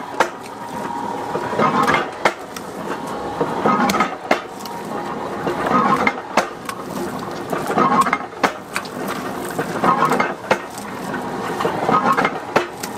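Machine-driven pestle pounding steamed rice dough in a granite stone mortar, one stroke about every two seconds, with sharp clicks and clatter of the machine between strokes.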